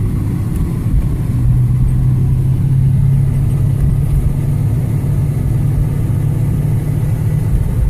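Car engine and road rumble heard from inside a moving car, with a steady low hum setting in about a second in.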